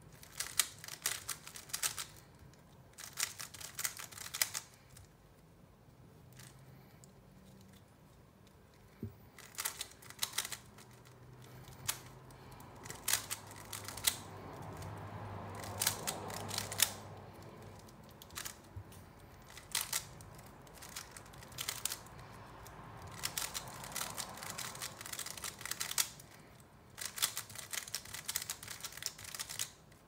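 Plastic layers of a 3x3 Rubik's cube clicking as they are turned by hand during a solve. The turns come in quick bursts of a second or two, separated by short pauses.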